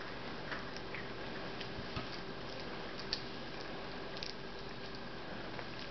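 Quiet room tone with a steady hiss and a few scattered faint clicks and taps.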